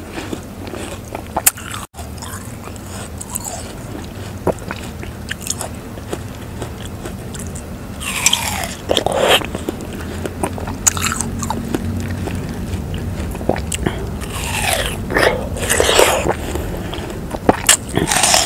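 Close-miked chewing of juicy watermelon: wet crunching and mouth smacking, with louder bites about eight seconds in, again about fifteen seconds in, and near the end.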